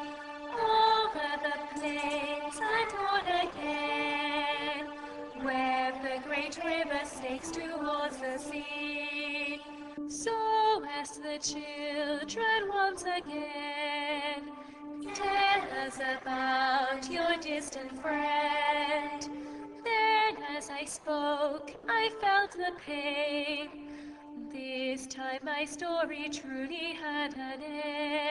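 Background music: a singing voice holding long, wavering notes over a steady low drone.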